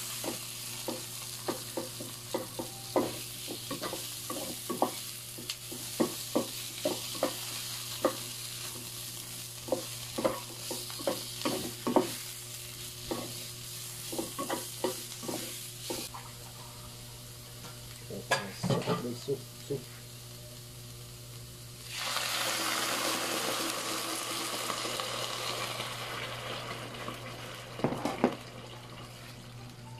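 A wooden spatula scrapes and taps around a non-stick wok as tomatoes, onions, garlic and miso sizzle in hot oil. About 22 seconds in, liquid is poured into the hot pan and a sudden, louder hiss takes over, easing off over the following seconds, with a couple of spatula knocks near the end.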